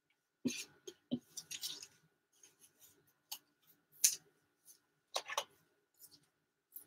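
Trading cards handled with gloved hands, slid into plastic card sleeves and a top loader: a scattered run of short plastic clicks and rustles, the sharpest about four seconds in.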